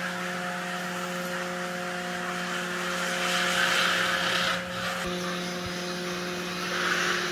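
Drive and steering motors of a four-wheel independent steering test vehicle whirring as it manoeuvres, over a steady electrical hum. The whir swells a few seconds in and drops off abruptly about halfway through.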